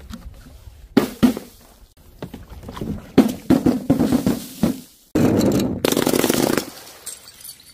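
Paint-filled balloons dropped from a height and bursting: two sharp hits about a second in, then a run of uneven splatting impacts. About five seconds in comes a louder, denser crash lasting a second and a half as the balloons and bottles smash.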